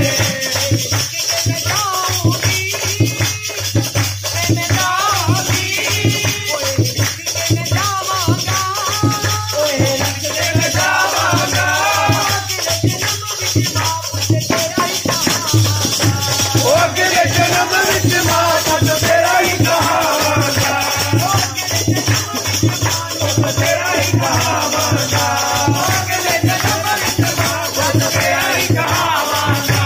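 Devotional bhajan music from a live mata chowki: a voice singing a wavering melody over fast, steady percussion with a shaker-like rattle.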